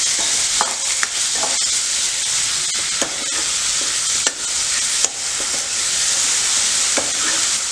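Freshly added chopped tomatoes sizzling in hot desi ghee with fried onion and spices in a kadhai, a steady frying hiss. A steel ladle stirs them, clicking and scraping against the pan several times.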